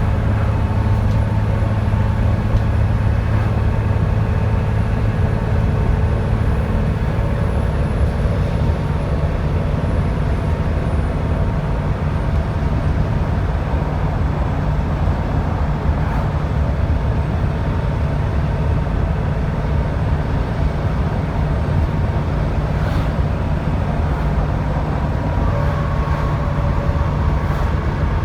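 Diesel engine of a Dennis Trident 2 double-decker bus running under way, a steady loud low rumble with a thin high turbo whistle that slowly falls in pitch over the first dozen seconds, then carries on faintly.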